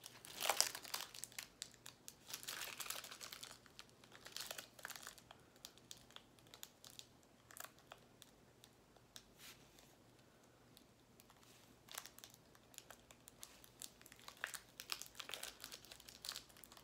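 Small plastic bags of diamond painting drills being handled and sorted, crinkling in irregular bursts, with a quieter stretch in the middle.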